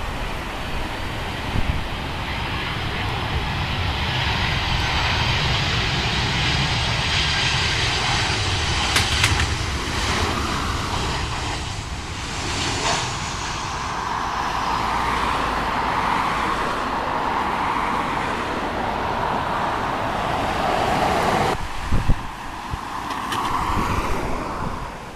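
Twin-engine jet airliner on landing approach passing low: engine noise with a high whine that climbs and then drops in pitch as it goes by, followed by a steadier engine drone.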